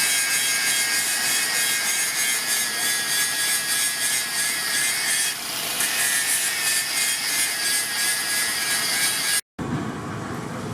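Steady abrasive scraping of steel, with a thin whine in the first half. About nine and a half seconds in it cuts off abruptly, giving way to a quieter, lower rumbling background.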